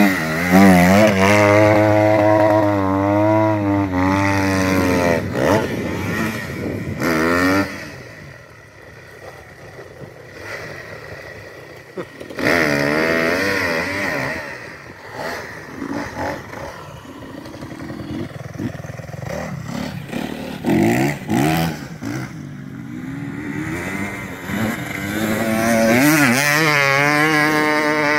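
Off-road engines revving, rising and falling in pitch, loudest at the start, again about twelve seconds in, and near the end, with quieter engine noise in between.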